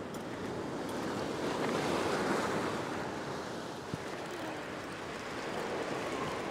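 Surf washing over a rock platform, swelling to its loudest about two seconds in and then easing off, with a single sharp click near the middle.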